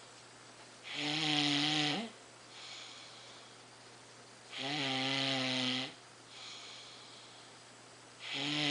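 A sleeper snoring in a steady rhythm: a loud, pitched snore about every three and a half seconds, each lasting about a second, with a softer breath between snores. The third snore starts near the end.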